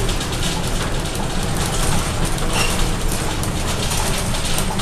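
Inside a moving Scania K230UB city bus: the low rumble of its Scania DC9 five-cylinder diesel under a steady clatter of irregular rattles and knocks from the bus's body and fittings.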